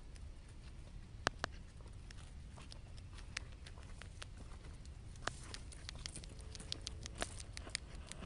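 Small sharp clicks and rustles from a Middle East blind mole rat moving in dry grass and soil, sparse at first and coming more often in the second half, over a low steady rumble.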